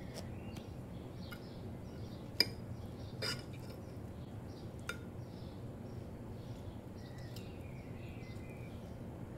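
A metal fork clinking against a plate a few times, the sharpest strike about two and a half seconds in, over a steady low hum.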